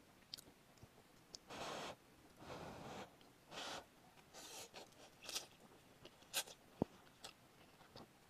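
Spicy instant noodles slurped in four short pulls, each about half a second long, followed by a few sharp clicks.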